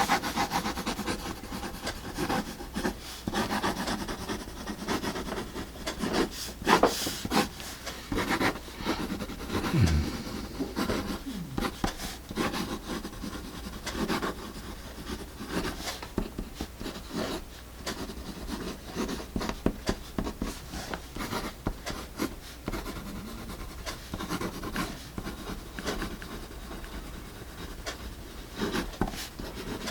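A pencil scratching and rubbing on paper, broken by many irregular clicks and taps, as a mechanical pencil is handled and written with.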